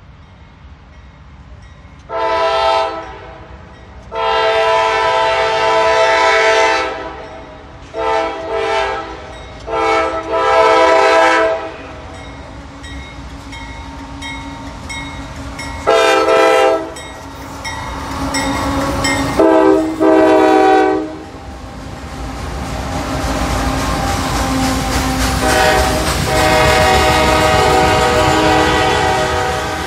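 CSX diesel freight locomotive's air horn sounding a series of short and long blasts as the train approaches. From about two-thirds of the way in, the rumble of the locomotives and the rolling clatter of the freight cars swell as the train passes, and the horn sounds one more long blast near the end.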